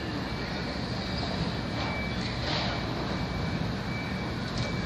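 Steady city traffic noise, with a faint high steady tone that comes and goes.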